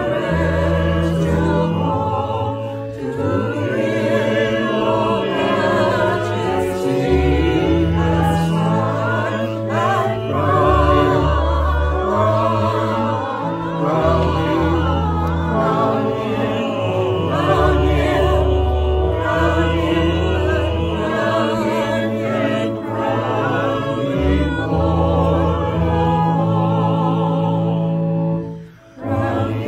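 A small mixed congregational choir singing a hymn in unison over keyboard accompaniment with sustained low bass notes, pausing briefly near the end between lines.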